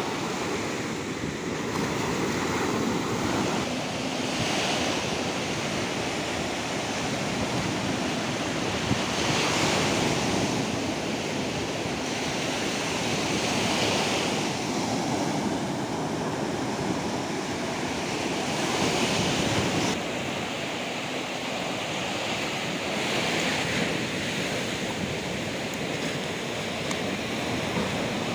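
Sea waves breaking on a beach: a steady wash of surf that swells into a louder rush about every four to five seconds as each wave comes in.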